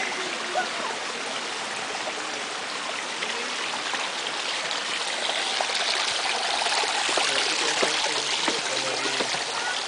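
Water running steadily down the open stone channels in the handrails of the Alhambra's Water Stairway, a continuous rushing trickle.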